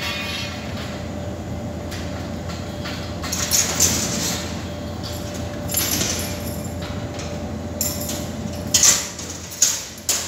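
Steady low hum in a large hall, broken by several short clanks and rattles of steel frame scaffolding as workers climb on it, the loudest two near the end.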